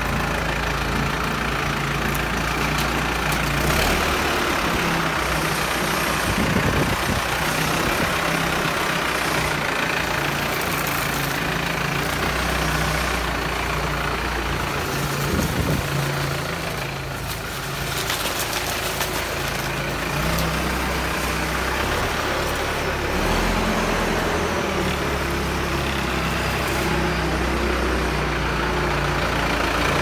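Bull HD96 backhoe loader's diesel engine running steadily at low revs, its pitch shifting up and down a few times as the loader works.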